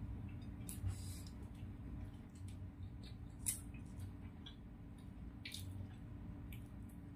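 Faint eating sounds: scattered small wet clicks as spicy chicken feet are chewed and picked apart by hand on the plate, over a steady low hum.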